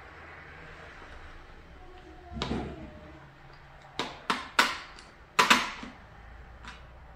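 Plastic parts of a Miele Triflex HX2 cordless stick vacuum being handled and fitted together. There is a short scrape about two and a half seconds in, then three sharp clicks in quick succession about four seconds in and a louder double knock about a second later.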